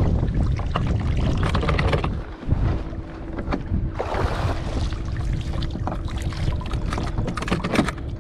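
Wind buffeting the microphone over the rumble of a small fishing boat on the water, with scattered knocks and clicks. About two and a half seconds in, a faint steady hum sets in and keeps going.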